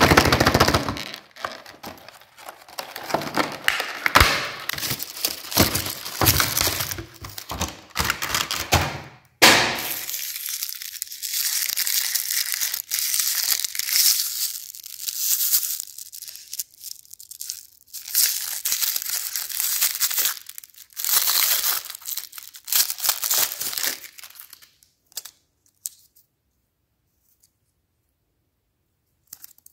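Clear plastic blister packaging and cellophane candy wrappers crinkling and crackling as they are handled, with a few knocks of the plastic tray. It is densest for the first nine seconds or so, lighter and higher afterwards, and dies away a few seconds before the end.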